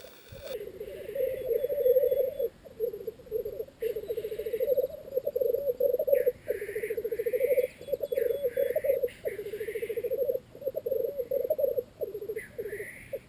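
Male black grouse lekking: a continuous bubbling, cooing song made of rapid fine pulses, broken only by brief pauses. Several short hissing 'sneeze' calls cut in over it, mostly in the second half.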